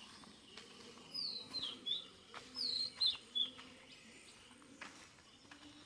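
A small songbird singing two runs of short, high whistled notes that slur downward, about a second in and again near three seconds in.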